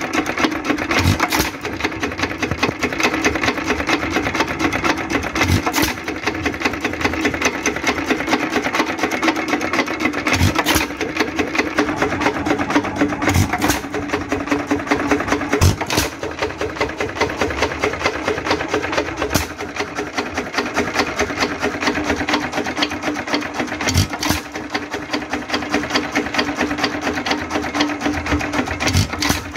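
Vintage Associated Chore Boy hit-and-miss stationary engine running, with a fast steady mechanical clatter from its moving parts. A sharp knock every three to five seconds marks its firing strokes, and the engine coasts on the miss between them.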